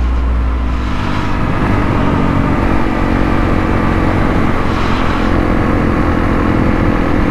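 Motorcycle engine running steadily at riding speed, with heavy wind rush over the microphone.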